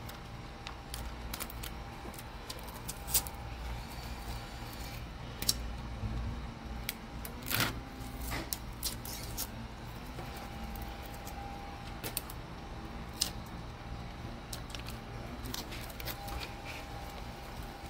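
Window tint film being handled and pulled apart on a glass board: light crinkling with scattered sharp clicks, over a steady low shop hum.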